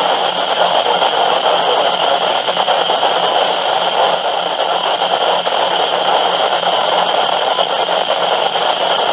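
Weather radio receiver hissing with loud, steady static and no voice coming through, as when the broadcast signal drops out; a faint low buzz pulses evenly underneath.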